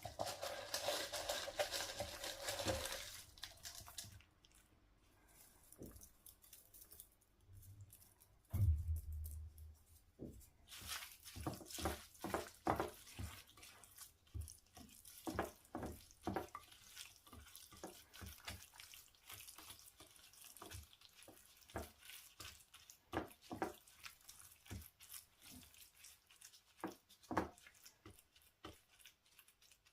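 Kitchen work sounds: water runs briefly at the start, then a low thud about nine seconds in, followed by a long scatter of small clicks and taps.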